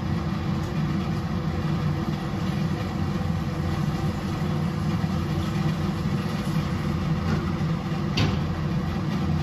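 A steady low mechanical hum, with one short knock about eight seconds in.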